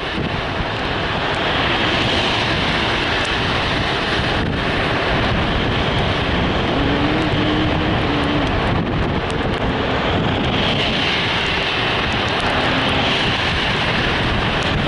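Steady wind and road noise of a car driving, with wind buffeting the microphone.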